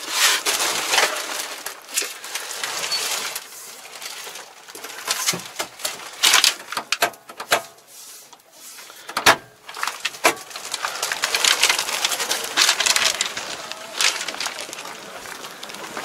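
Rustling and handling noise with many sharp clicks as hands work a tractor cab's door and grab rail, with one hard knock about nine seconds in.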